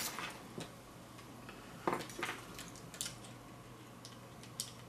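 A few light, irregular clicks and clacks of alligator-clip leads and a plastic breadboard being handled and clipped together on a wooden tabletop, over a faint steady hum.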